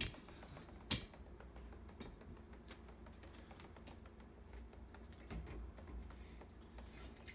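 Faint clicks and light taps of things being handled, with two sharper clicks, one at the very start and one about a second in, over a steady low hum.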